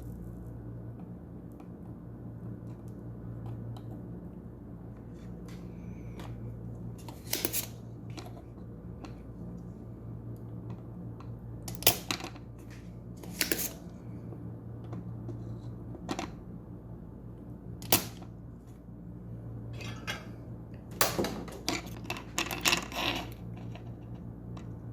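Sharp clicks and taps of hand tools on a circuit board while a diode is desoldered, a few spread out and then a quicker run near the end, over a steady low hum of bench equipment.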